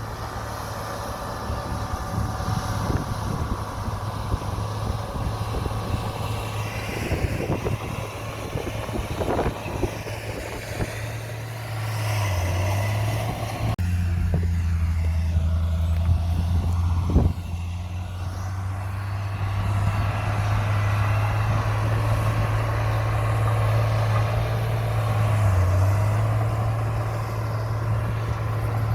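Heavy diesel earthmoving machinery running steadily, its engine note dipping briefly twice as it takes load, with scattered knocks and one sharp clank a little past the middle.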